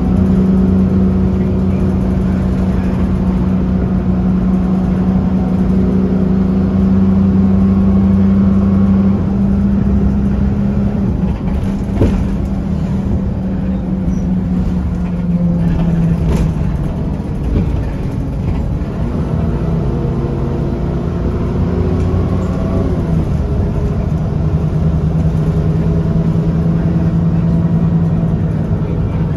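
Diesel engine of an Alexander Dennis Enviro300 single-deck bus running, heard inside the passenger saloon as a steady drone with a strong hum. The hum wavers and dips in the middle, and there are two short knocks.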